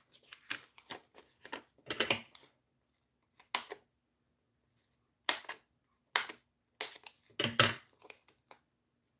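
Small scissors snipping through a sheet of foam adhesive for popping up a card layer, with paper handling: irregular short, sharp snips and rustles separated by brief pauses.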